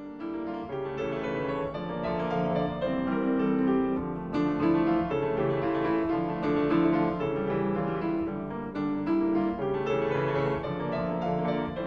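Background piano music: a slow succession of held notes and chords.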